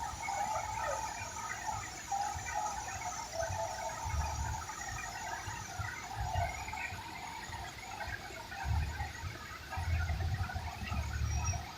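Many birds chirping and calling together in a busy, steady chorus, with gusts of wind rumbling on the microphone that come and go.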